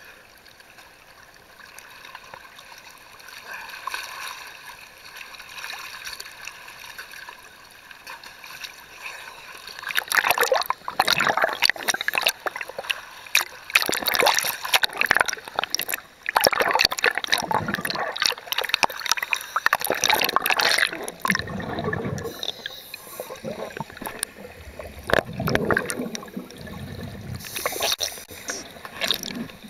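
Sea water sloshing and gurgling around the camera at the surface. About ten seconds in it turns louder and busier, with irregular bubbling and splashing bursts as the camera goes under among a scuba diver's bubbles.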